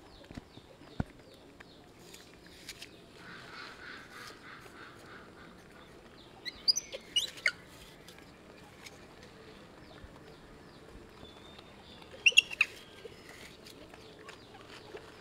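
Two short bursts of high, squeaky chirping calls, about six and twelve seconds in, over faint scattered clicks.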